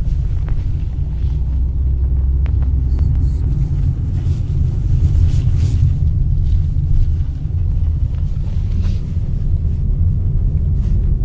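Steady low rumble of a car driving, its road and engine noise heard from inside the cabin.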